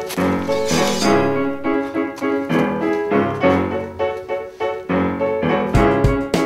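Background music led by piano chords; a drum beat comes in near the end.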